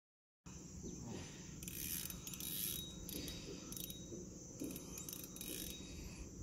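Spinning reel ticking and rasping in short spells, several times, as a hooked giant freshwater prawn pulls on the bent rod.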